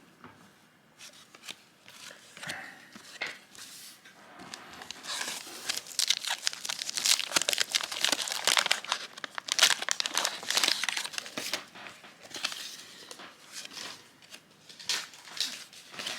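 Crinkling and rustling of baseball card packaging being handled, with many quick crackles. It is loudest in the middle and quieter near the start and end.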